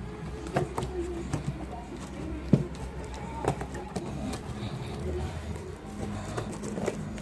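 A parcel being unpacked by hand: scattered knocks, clicks and scraping as the box and packaging are handled, with one sharper knock about two and a half seconds in.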